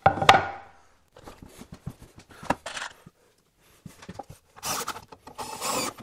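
A wooden board is knocked down onto a wooden frame just after the start, followed by scattered small rubs and clicks of the wood being handled. In the last second and a half there are noisy bursts of a drill with a combined drill-and-countersink bit cutting into pine.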